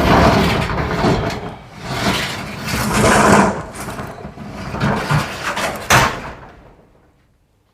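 Metal roll-up door of a storage unit rattling as it is opened, in several loud noisy swells, ending with a sharp clank about six seconds in.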